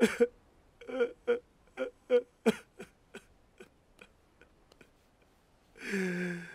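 A person's voice in a string of short, sharp vocal catches over the first few seconds, thinning out, then a longer moan that falls in pitch near the end.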